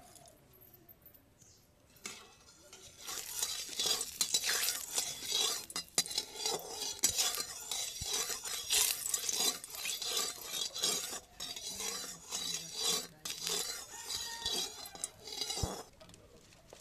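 Metal spatula scraping and clinking against an aluminium wok as hot mustard oil is stirred, with the oil sizzling. This starts about two and a half seconds in and stops shortly before the end.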